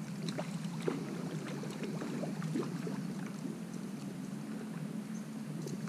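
Carp splashing at the water's surface at the bank as it is landed: a string of small irregular splashes over a steady low background rumble.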